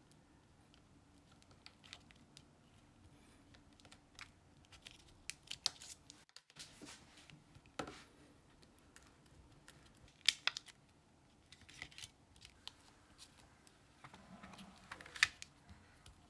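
Quiet handling sounds of small crafting work with iClay air-dry clay: scattered clicks, snips and short rustles of hands and small tools.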